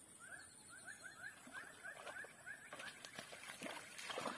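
An animal calling: a rapid series of short, rising chirps, about four a second, that stop about two and a half seconds in. A run of irregular clicks and knocks follows.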